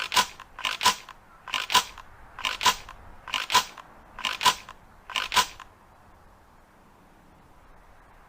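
Ithaca Model 37 pump-action shotgun's slide racked back and forth about seven times in a row. Each stroke gives a sharp metallic double clack, and they come just under a second apart. The clacks stop about five and a half seconds in.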